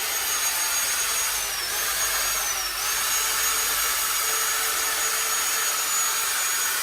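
Small high-speed electric power tool running steadily with a high whine. Its pitch dips briefly twice, about 1.5 and 2.5 seconds in, as the tool bites into the work.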